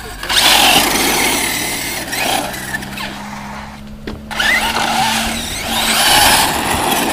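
Radio-controlled off-road trucks accelerating in bursts over loose dirt: motor whine and tyres scrabbling, with a short rising whine about four and a half seconds in.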